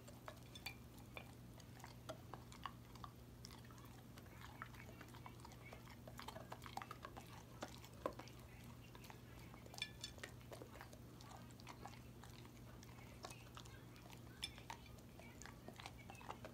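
Golden retriever chewing chunks of coconut off a ceramic plate: faint, scattered clicks and crunches of teeth and plate, over a low steady hum.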